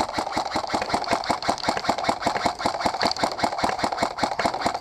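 Airsoft electric gun firing one long full-auto burst: a rapid, even rattle of shots.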